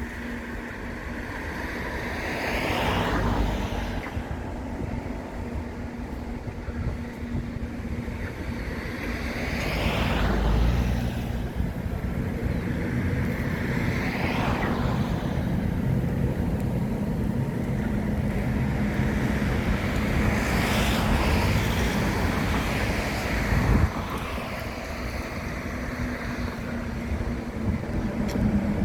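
Road traffic: vehicles passing one after another, each one rising to a swell and fading away, over a steady low hum.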